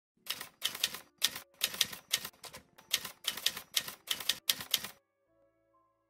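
Typewriter keys struck in quick clusters of clacks for about five seconds, then the typing stops and faint, soft sustained music notes remain.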